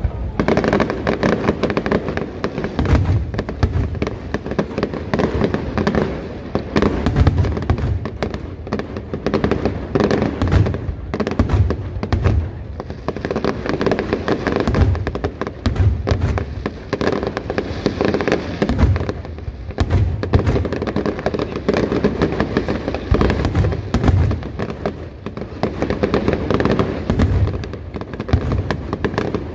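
Aerial fireworks shells bursting in a continuous barrage: deep booms every second or two, with many sharp cracks and reports between them.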